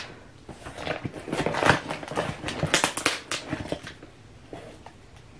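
Scissors cutting and scraping through the packing tape on a cardboard shipping box: a run of irregular snips, crackles and scrapes that dies down about four seconds in.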